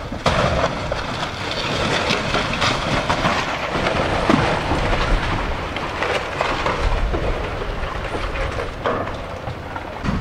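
Timber and masonry debris crashing and clattering down as an excavator pulls a building apart: a dense rattling crash that starts suddenly and goes on with many sharp impacts, easing a little near the end.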